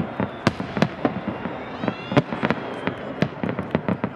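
Fireworks display: a rapid, irregular series of sharp bangs and crackling reports, several a second, from shells bursting overhead.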